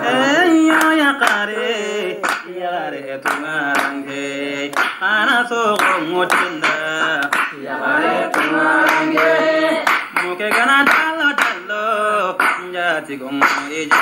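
Voices singing a repetitive chant, with hand claps keeping time.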